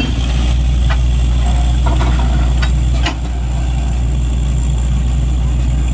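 Truck-mounted borewell drilling rig running with a steady, loud low engine drone. A few short sharp knocks sound in the first three seconds.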